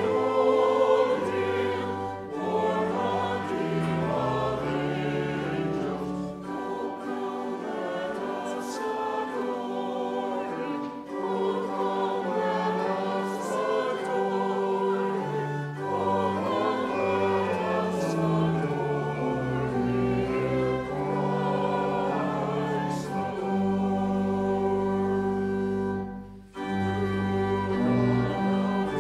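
Congregation and robed church choir singing a hymn together with musical accompaniment, in sustained lines with a brief break between phrases near the end.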